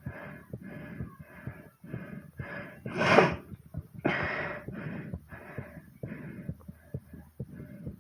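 A person panting hard and fast from exercise, about two breaths a second, with one much louder, harsher breath about three seconds in and a long breath right after it. Soft low thumps of a racing heartbeat run underneath.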